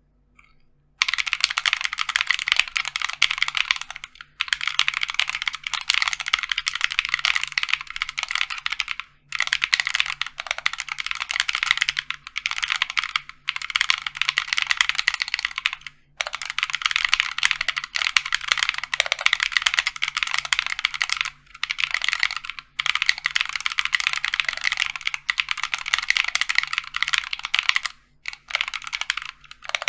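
Fast typing on an OLKB Planck High-Pro mechanical keyboard with lubed Kinetic Labs Salmon tactile switches, an aluminium plate and EPBT PBT keycaps. It comes in runs of a few seconds broken by short pauses, starting about a second in.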